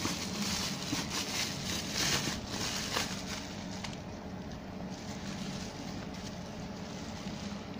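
Bubble wrap crinkling and crackling as it is handled and pulled off a plastic tub, busiest in the first three seconds or so, then settling into a steady low background rumble.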